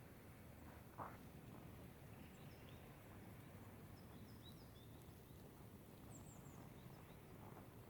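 Faint, short high bird chirps scattered through a quiet winter park, over a steady low background hum, with a single crunch of a footstep in snow about a second in.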